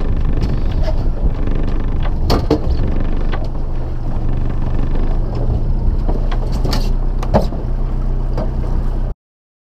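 A boat's outboard motor runs steadily at trolling speed under wind and water noise, with a few sharp knocks and clatters on the deck about two and a half seconds in and again around seven seconds. The sound cuts off suddenly near the end.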